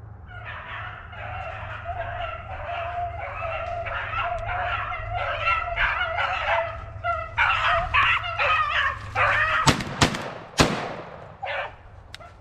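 Hounds baying in overlapping yelping cries while running a rabbit's trail through brush. Near the end, three sharp cracks come within about a second, louder than the baying. After that the baying mostly stops, with one short cry, over a steady low rumble.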